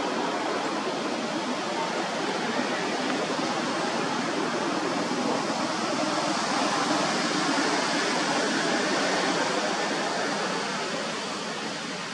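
A steady rushing noise, even across low and high pitches, that eases slightly near the end.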